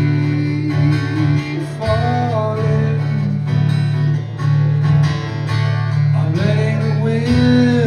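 Acoustic guitar strummed steadily, with a man singing long held notes that bend in pitch, folk-rock style.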